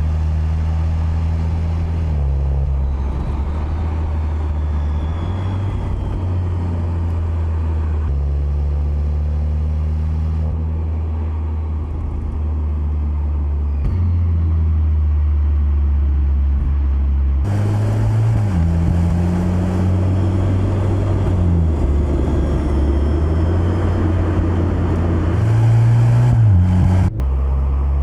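Mercedes-AMG C63 S E Performance's turbocharged 2.0-litre four-cylinder engine and exhaust while driving on the road: a low steady drone that shifts pitch in steps, getting louder with more road noise about halfway through, with a short rise in revs near the end.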